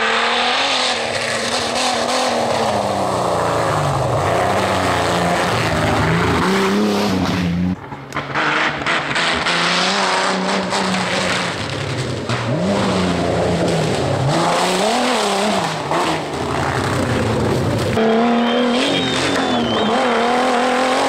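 Engines of modified off-road 4x4 race vehicles revving up and down hard under load as they climb dirt tracks. The sound changes abruptly twice, about 8 and 18 seconds in, as different vehicles take over.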